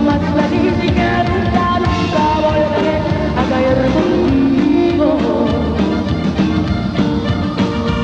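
A female lead singer sings live into a handheld microphone over a full Tejano band playing a steady beat.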